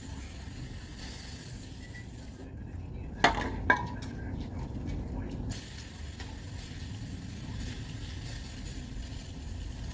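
A steady hiss with a low rumble under it. A few seconds in come two sharp metallic clinks about half a second apart, like a tool knocking on metal.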